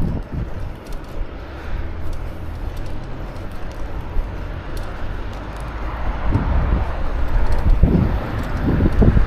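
Street ambience heard while riding along a bike path: a low rumble of road traffic and wind on the microphone. It grows louder about six seconds in, with low gusts near the end.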